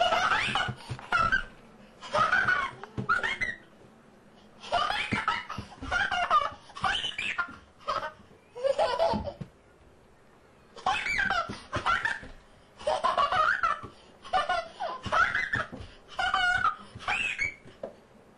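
A toddler laughing in repeated high-pitched bursts of giggles and belly laughs, with short breaks between.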